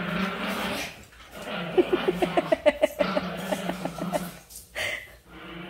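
Pomeranian puppy vocalising in play: a low steady grumble, then a fast run of short, sharp notes about two seconds in, then the grumble again before it fades near the end.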